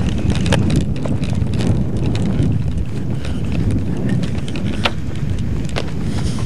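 Steady low rumble of wind buffeting a camcorder microphone, with irregular sharp knocks of running footfalls on pavement.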